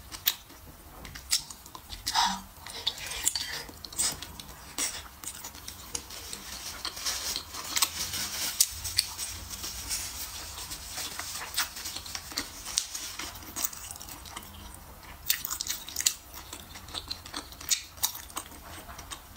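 Close-miked chewing of a mouthful of braised pork: soft wet mouth sounds with many small clicks and lip smacks.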